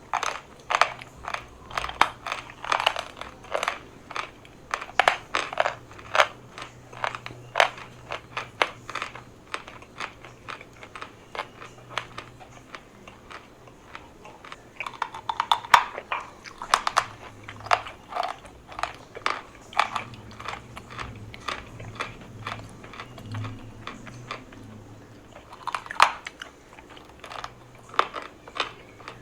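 A large piece of chalk being bitten and chewed close to the microphone: a steady run of crisp crunches. There are louder bites about halfway through and again a few seconds before the end.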